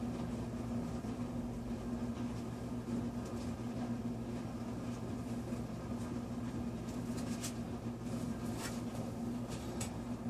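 A steady low machine hum, with a few faint clicks in the last few seconds.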